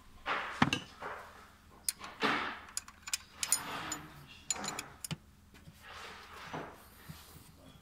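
A steel spanner clinking against engine metal at the timing-belt tensioner, several sharp clicks, with rustling handling noise between them.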